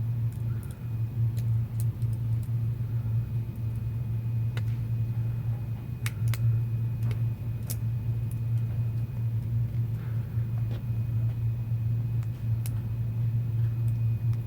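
Steady low electrical or fan hum with a few faint, scattered clicks from small phone parts being handled and fitted.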